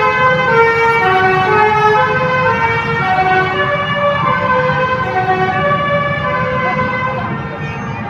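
Tour bus 'telolet' multi-tone musical horn playing a quick tune of held notes that step up and down in pitch, over a low rumble, growing a little fainter near the end as the bus moves off.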